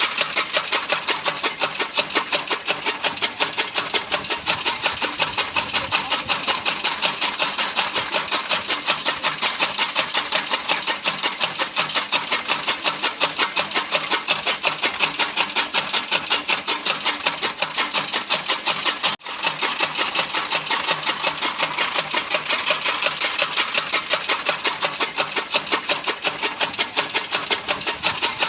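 Fodder cutting machine (chaff cutter) running steadily with a rapid, even beat of about four strokes a second. There is a brief break about two-thirds of the way through.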